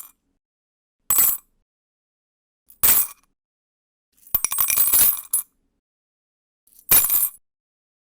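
Coins dropping onto a hard surface, clinking and ringing, heard as four separate short drops with silence between. The third, about halfway through, is a longer run of rattling clinks lasting about a second.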